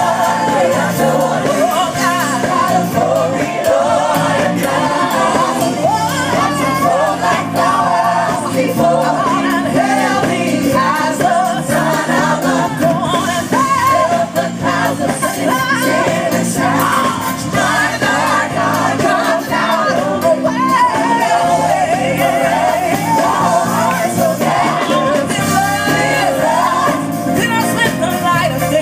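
Gospel vocal group singing with a live band and drum kit, amplified through a PA.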